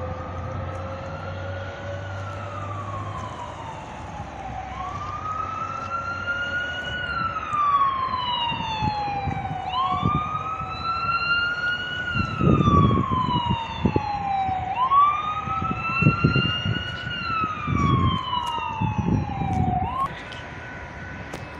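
An emergency-vehicle siren wailing. It rises quickly and falls slowly in cycles of about five seconds, then cuts off just after starting a new rise about twenty seconds in. Low rumbles come and go underneath in the second half.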